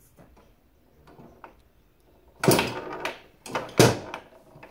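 Tabletop foosball game in play: faint clicks of the ball and plastic players, then two loud knocks with a short ring, about two and a half seconds in and again just under four seconds in.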